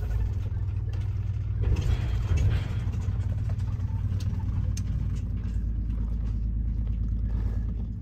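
Diesel engine of a 1985 Blue Bird Wanderlodge motor coach running steadily at low speed, heard from inside the cab, with some rattling about two seconds in.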